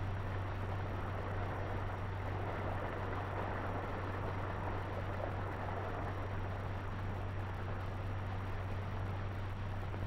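Steady hiss over a constant low hum with no distinct sound event: the background noise of an old film soundtrack.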